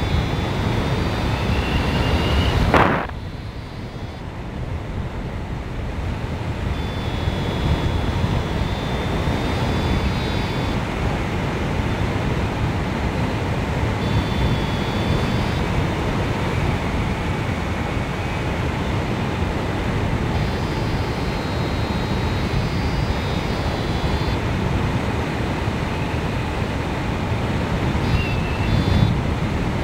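Steady rush of airflow over the microphone of a hang glider in flight. About three seconds in, a sharp knock comes and the rush drops, then builds back up. Faint high thin tones come and go.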